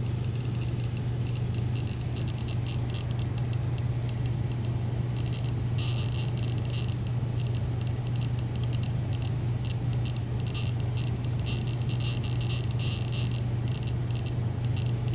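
Handheld EMF meter's speaker giving off a steady low hum with fast, irregular crackling over it, the crackle growing denser about six seconds in.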